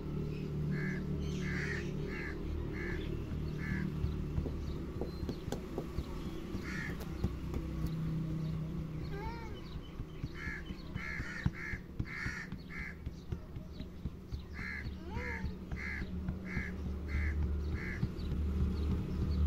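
Crows cawing in runs of short, harsh calls, about five or six at a time, with a single call between the runs. Underneath there is a steady low hum and a few light knocks.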